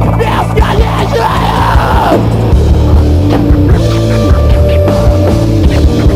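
Heavy rock band playing live: loud guitars, bass and drums. A wavering pitched line, from voice or guitar, slides up and down for about the first two seconds. After that, held low notes change in steps under a regular drum beat.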